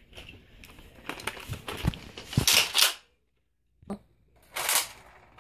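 Rustling and handling noise with a few knocks, then a brief gap of dead silence. After it comes a small thump, and then near the end one short, sharp burst of noise: a Nerf foam-dart blaster firing.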